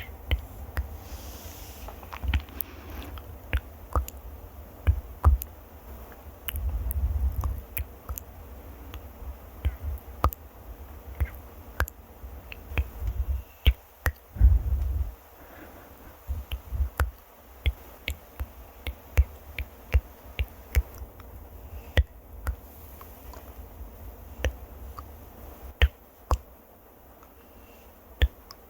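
Close-miked ASMR trigger sounds: irregular sharp clicks and taps, with a few low rumbling stretches of rubbing on the microphone, about a quarter and halfway through.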